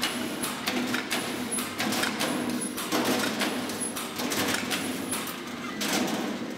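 Rivclinch clinching tool pressing a fast series of clinch joints into galvanised sheet-metal duct: a run of sharp metallic clicks over a steady hiss.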